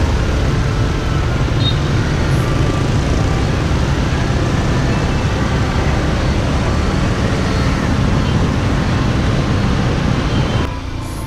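Motorbike ride in dense city traffic: motorbike, car and truck engines running all around with road noise, steady throughout. It drops a little shortly before the end.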